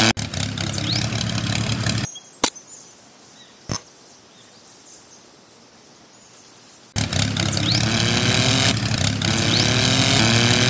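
Tractor engine running and revving, its pitch rising. It cuts off abruptly about two seconds in and comes back just as abruptly about seven seconds in. Between them are two sharp clicks.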